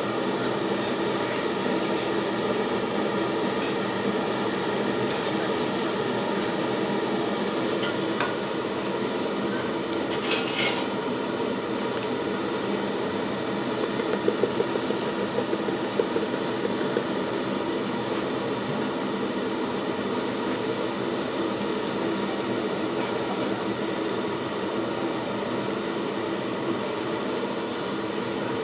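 Steak sizzling on a hot griddle over a steady hum of kitchen ventilation, with a few clinks of metal utensils in the middle.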